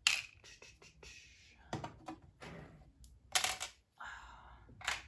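Small tools and accessories clicking and clattering as they are handled and set into a steel toolbox drawer: a few sharp clicks about a second and a half apart, with soft rustling between.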